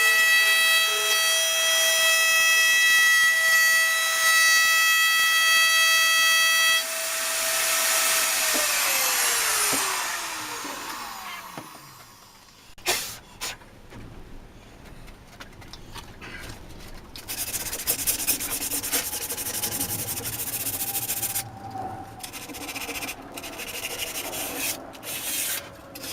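Electric router running with a steady high whine, switched off about seven seconds in and winding down, its pitch falling over several seconds. Later come a knock and a stretch of wood rubbing and scraping.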